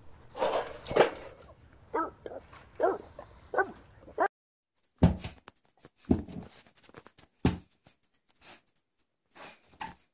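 A dog barking: a loud burst, then four short pitched barks. After that, a few short knocks and scuffs, about one a second, as a husky noses at a wall mirror.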